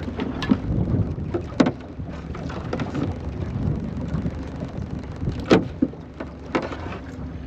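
A few sharp knocks and rattles as a round mesh crab pot is handled against the side of a small boat, over a steady wash of wind and water noise.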